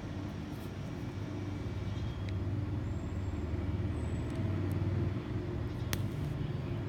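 A steady low rumble that swells in the middle and eases off, with one sharp click about six seconds in.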